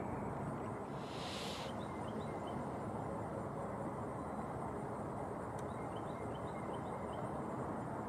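Steady low outdoor background rumble with a brief hiss about a second in. Two short runs of quick, rising high chirps from a small bird come around two seconds in and again near the end.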